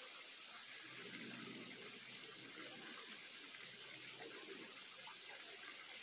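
Mountain stream flowing steadily, with a continuous high-pitched insect drone.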